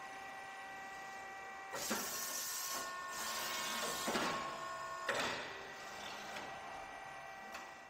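Tube-bending machine at work: a steady whine of several tones from its drive motors, broken by short hissing bursts about two, four and five seconds in.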